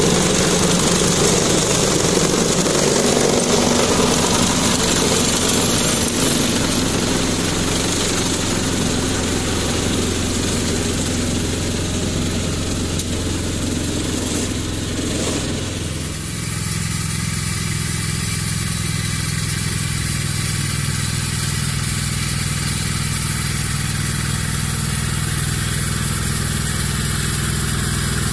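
Ferrari 95RS tractor's Lombardini 40 hp engine running steadily while driving a PTO-driven rotary slasher cutting grass, with a loud rushing whir from the mower over the engine note. About halfway through, the sound changes abruptly to a steadier, cleaner engine note with less of the mower's rush.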